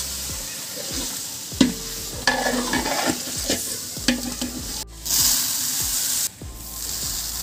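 A flat metal ladle stirs chicken pieces into sizzling onion-tomato masala in a large aluminium pot, scraping and knocking against the pot. About five seconds in, the sound switches suddenly to a louder hiss for just over a second, as rice grains pour into a plastic bucket.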